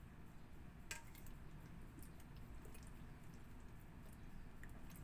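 Faint wet squishing of hands massaging dark soy sauce marinade into a whole raw chicken in a stainless steel bowl, with a light click about a second in.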